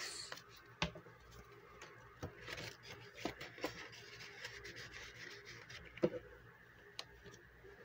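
Paper dollar bills being handled and laid down: soft rustling and rubbing of paper, with a few light, sharp taps and clicks scattered through it.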